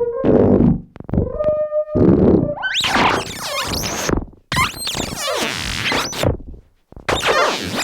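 Pittsburgh Modular Voltage Lab 2 analog synthesizer playing a string of short, noisy, distorted bursts with pitch sweeps rising and falling, separated by brief silences.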